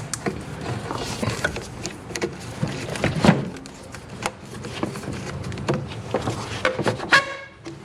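Hand tools and parts being worked on under a hood while the air intake is taken off: a string of irregular clicks, knocks and rustling of plastic and metal, with one louder knock about three seconds in.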